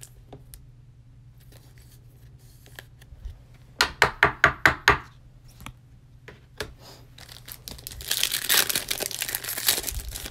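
Foil trading-card pack wrapper being torn open and crinkled, a dense crackle in the last couple of seconds. Earlier, about four seconds in, comes a quick run of about six sharp rips or snaps.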